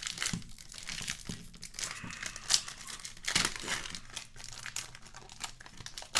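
The wrapper of a 2021 Panini Prizm Draft Picks trading-card pack being torn open and peeled off the cards by hand. It crinkles and crackles irregularly, with the sharpest crackles near the middle.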